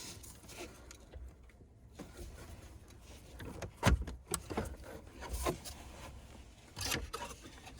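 Scattered clicks and knocks of plastic parts and a wiring connector being worked loose by hand inside a pickup's cab. The loudest knock comes about four seconds in.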